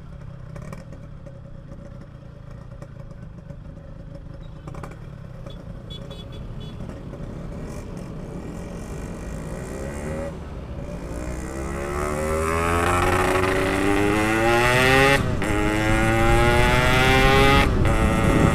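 Yamaha RX-King two-stroke single with a PK3 exhaust, running steadily at first and then accelerating hard in the second half, its pitch rising and getting louder, with two short breaks near the end where it shifts up a gear.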